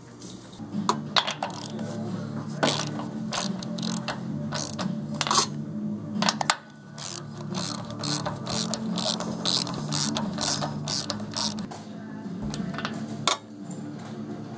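Socket ratchet wrench clicking in irregular runs as it turns nuts on the turbojet engine casing.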